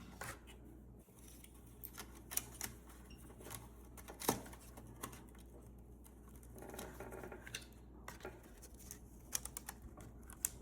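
Small plastic parts handled and pressed together: scattered light clicks and taps as a replacement propeller guard piece is worked into place on a DJI Flip drone, with one sharper click about four seconds in, a soft rubbing around the middle and a quick run of clicks near the end.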